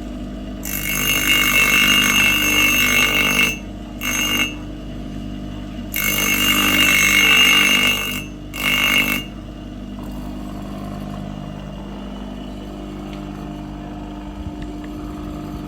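Electric scissors and knife sharpening machine running with a steady motor hum. A blade is ground on it in two long grinding passes with a high ringing edge, each followed by a short pass, and then the motor runs on alone.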